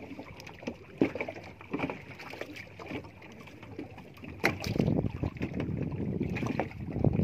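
Small fishing boat at sea: a few scattered knocks and clatter aboard, then, a little past halfway, several seconds of low rumbling wind and handling noise on the microphone.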